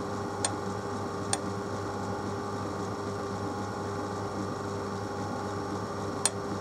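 Steady low workshop hum, with three small sharp clicks as a micrometer is fitted and set against a steel boring bar: one about half a second in, one a second later, and one near the end.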